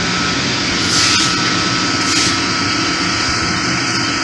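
Loud, steady drone of running plant-room machinery: an even hiss with a few faint steady tones. A brief knock comes about a second in.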